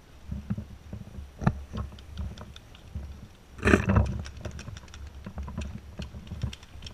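Quick footsteps on a dry dirt trail, low thumps a few times a second, with dry brush scratching against the player's gear. There is one louder, brief rush of noise a little past halfway.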